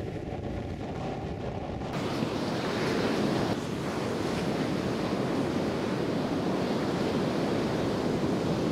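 Ocean surf breaking and washing up a sandy beach, a steady rushing noise, with wind buffeting the microphone. It gets louder about two seconds in.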